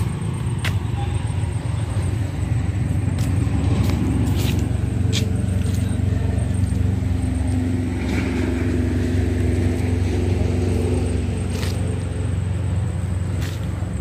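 Motor vehicle traffic on a nearby road: a steady low engine rumble that swells with a pitched drone through the middle, as a vehicle passes, with a few scattered sharp clicks.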